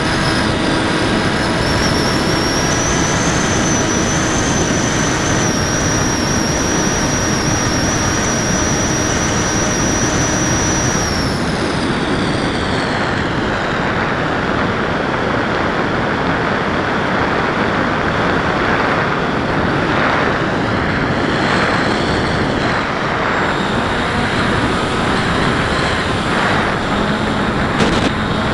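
Electric motor and propeller of an FPV Raptor model plane whining high and steady, heard from the onboard camera over a rush of wind. About eleven seconds in the whine falls in pitch and fades, leaving mostly wind rush as the plane glides lower.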